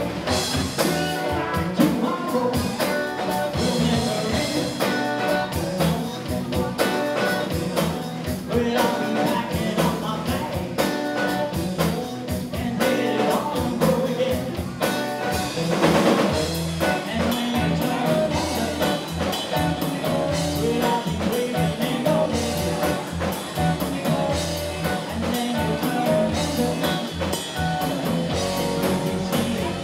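Live rock band playing: electric guitar over a drum kit and bass, at steady volume.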